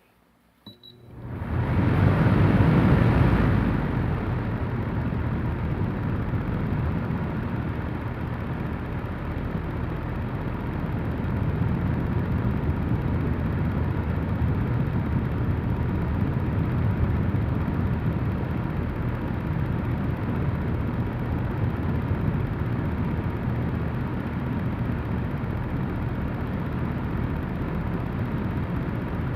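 AVIAIR R10 air circulator fan starting up about a second in, with a steady rush of blown air. It is loudest for the first two seconds or so, then settles slightly lower and runs on evenly.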